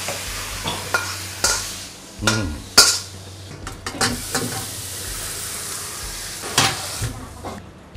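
Holy basil and fried mackerel sizzling in sauce in a hot wok, stirred with a metal spatula that clinks and scrapes against the pan several times. The sizzle stops near the end.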